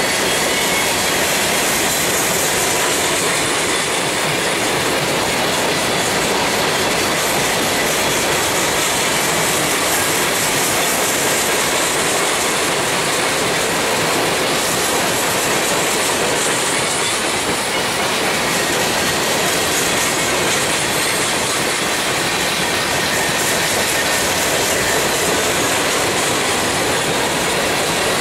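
Freight train of empty coal hopper cars rolling past, with the steady rumble and clatter of steel wheels on the rails.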